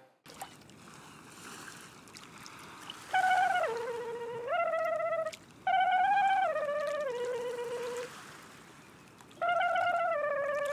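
Faint steady hiss, then a melody of held, slightly wavering notes in three phrases, each stepping down from a higher note to a lower one and back up.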